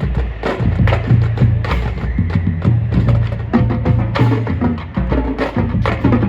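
Marching drumline playing a fast cadence: rapid sharp drum strokes over a run of bass-drum notes at several different pitches.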